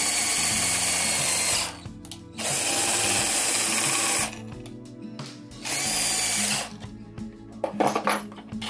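Cordless drill spinning the threaded rod of a router table's rise-and-fall lift, running the router up and down in three bursts, the last one shortest, with a few clicks of handling near the end.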